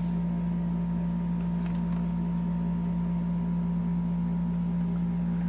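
A steady low hum with a fainter high tone above it, unchanging throughout.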